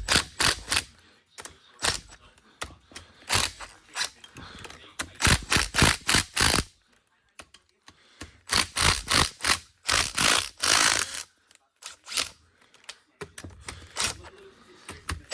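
Ratchet wrench clicking in short bursts with pauses between, loosening the cylinder head nuts of a Honda CR250 two-stroke engine a little at a time in a crisscross pattern.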